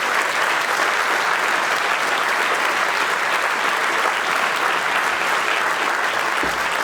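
Large congregation applauding steadily, a dense even clapping.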